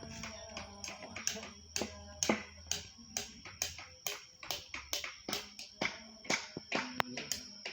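Carving tools working wood: a run of irregular sharp taps and cuts, two or three a second, over a faint steady high whine.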